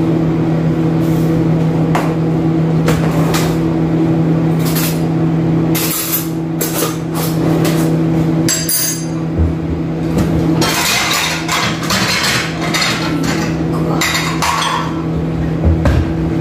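Kitchen handling sounds: scattered clinks and knocks of dishes and utensils on a counter, busier in the second half, over a steady low hum.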